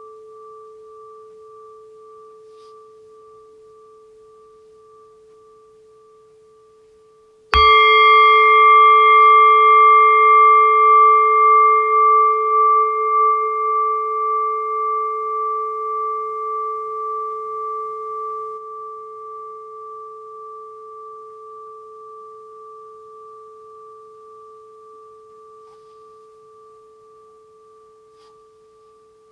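A singing bowl struck once about seven seconds in, with a short dull thud at the strike. Its ring holds two main tones with a pulsing wobble and dies away slowly over about twenty seconds, and its brighter overtones fade within a few seconds. Before the strike, the faint tail of the previous ring is still sounding.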